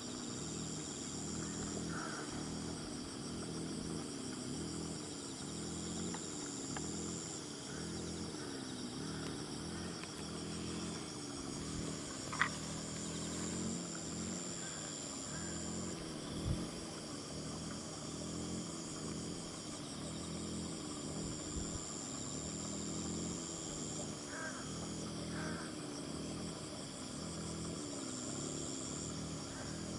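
A steady chorus of crickets and other insects trilling, high-pitched, with the loudest trill breaking off and starting again every few seconds. A lower wavering hum runs beneath, and two brief clicks come about twelve and sixteen seconds in.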